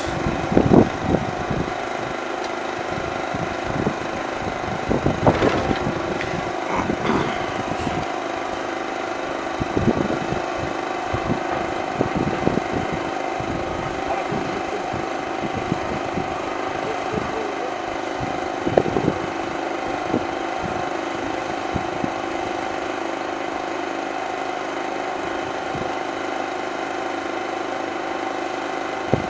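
An engine idling steadily, with scattered clicks and knocks from hands and tools working on the diesel irrigation pump's engine.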